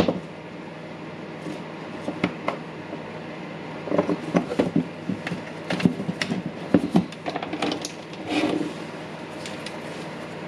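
Hands handling the opened rotary hammer and small parts: scattered clicks, taps and light knocks of hard plastic and metal, with a brief rustle about eight and a half seconds in.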